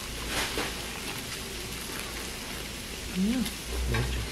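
Steady hissing background noise, with a person's short hummed "mm" rising and falling in pitch about three seconds in, as a mouthful of lettuce wrap is eaten.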